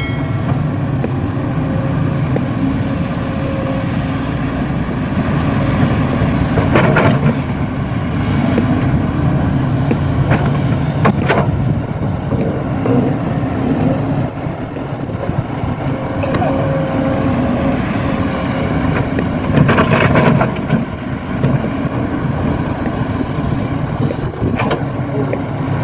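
A motor running steadily with an even hum, broken by a few short knocks or scrapes over the span.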